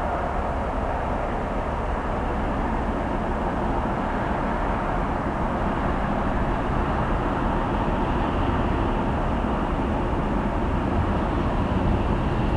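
Two Class 56 diesel locomotives double-heading a loaded log train, their Ruston-Paxman 16-cylinder engines running under power as a steady drone that grows slowly louder as they approach.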